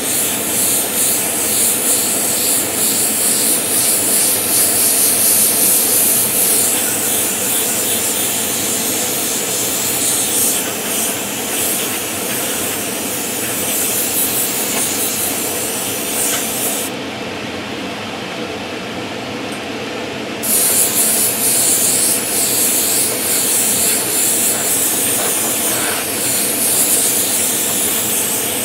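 Airbrush spraying a heavily thinned paint coat at raised air pressure: a steady high hiss that stops for about three seconds around two-thirds of the way through, then resumes. Extractor fans run steadily underneath.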